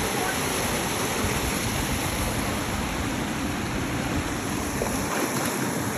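Steady rush of a stream flowing over small cascades between rock pools.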